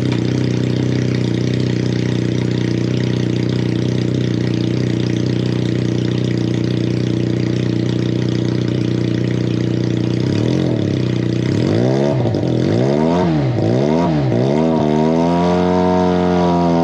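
Benelli 302S's 300 cc parallel-twin engine running in gear on a rear stand, turning the newly fitted chain and spinning the rear wheel. It idles steadily, then from about ten seconds in is revved up and down several times before being held at a steady higher speed near the end.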